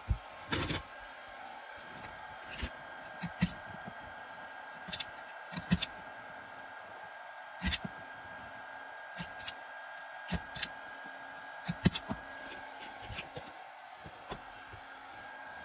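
Irregular sharp clicks and snaps of a hand wire stripper and crimper working on wire ends, with handling of the loose wires, over a steady hum.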